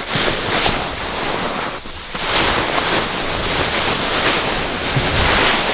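Strong wind in a mountain snowstorm buffeting the microphone, a loud steady rushing noise that dips briefly about two seconds in.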